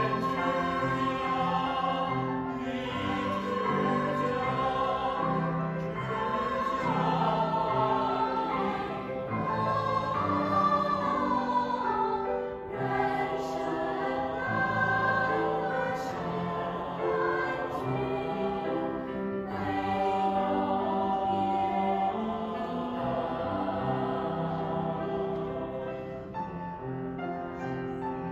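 A mixed choir of men's and women's voices singing together, accompanied by a grand piano.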